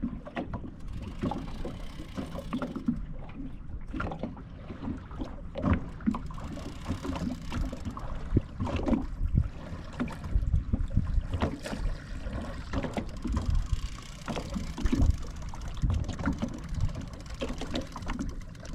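Irregular knocks, low thumps and splashy noise from a small fishing boat on the water while a hooked catfish is being fought, with no steady engine sound.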